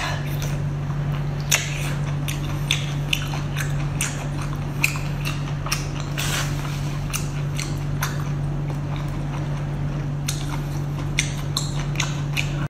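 Close-up mouth sounds of someone biting and chewing braised octopus: frequent short smacks and clicks. A steady low hum runs underneath.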